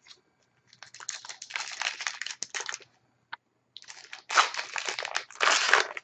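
A hockey card pack wrapper being torn open and crinkled by hand, in two spells of rustling with a single click between them; the second spell is louder.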